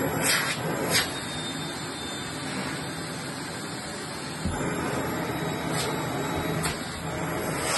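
Vacuum cleaner running steadily as its wand nozzle is worked over fabric sofa upholstery, with a few brief clicks and scrapes. It gets a little louder about halfway through.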